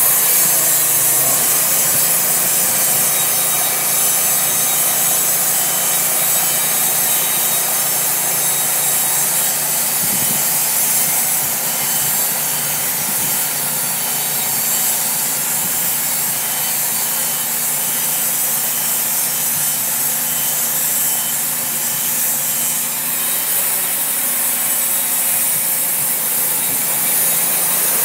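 Wood-Mizer LT40 portable band sawmill running under load, its band blade cutting lengthwise through a reclaimed Douglas fir piling: a steady engine note under the continuous rasp of the blade in the wood.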